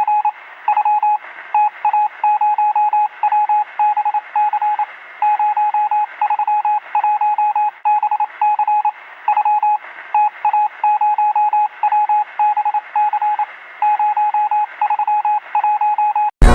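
Emergency alert alarm signal: a single mid-pitched tone keyed on and off in rapid beeps, grouped in uneven runs with short pauses, with a thin, radio-like sound. It cuts off near the end.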